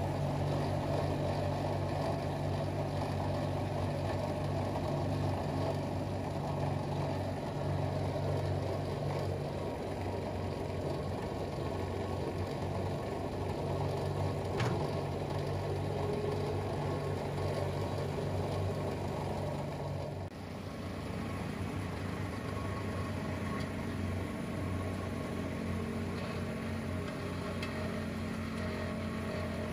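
A portable gasoline generator and a New Holland skid steer loader's diesel engine running together as a steady mechanical drone. Near the end the skid steer raises its loader arms with a bucket of compost, and the engine note shifts.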